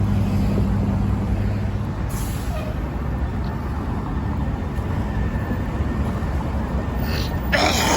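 Street traffic: a heavy vehicle's engine running with a low, steady hum that fades after about two seconds, and a short, loud hiss of air near the end.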